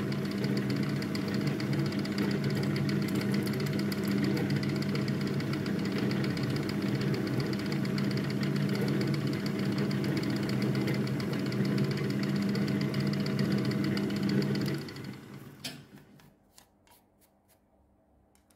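Milling machine spindle running steadily while a resharpened 6 mm end mill makes a test cut in aluminium. About 15 s in the machine is switched off and spins down, followed by a few light clicks.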